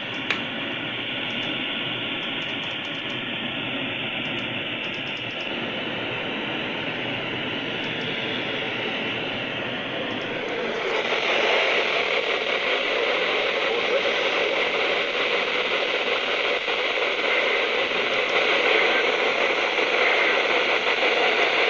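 Radio static from a software-defined radio receiver on the NOAA weather band: a steady hiss with no voice coming through. About eleven seconds in, the hiss gets louder and brighter.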